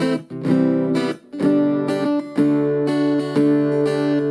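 Mitchell electric-acoustic guitar strummed through a Blackstar Superfly amplifier: several strummed chords, each ringing on after the strum.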